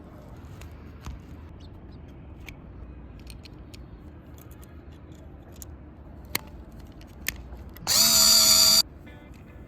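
A small electric drill or rotary tool runs for about a second, rising in pitch as it spins up and then cutting off, after a few sharp clicks.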